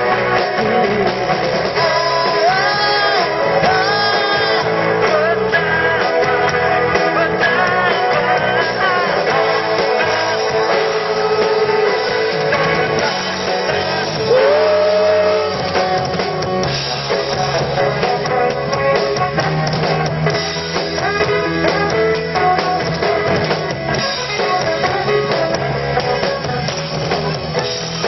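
Live band playing a pop-rock song: electric guitars, bass, keyboard and drum kit, with a singer's voice coming in and out over the instruments.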